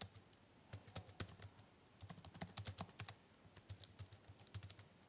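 Faint keystrokes on a computer keyboard, typing a short line of text in irregular runs of clicks.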